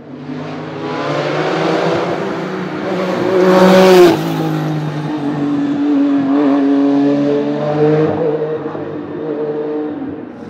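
Tuned Porsche 993 GT2 Evo's twin-turbo air-cooled flat-six accelerating hard. The revs climb to a peak about four seconds in and drop sharply, then climb again and ease off near the end.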